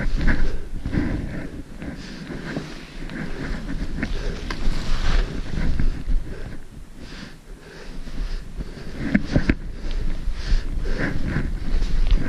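Footsteps crunching in snow, in an uneven rhythm of about one step a second, with the hiker's breathing and wind rumbling on the microphone.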